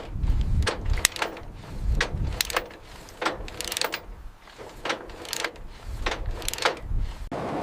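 Heavy metal clanking and ratcheting: sharp, irregular knocks about every half second over low thuds, with a lull in the middle.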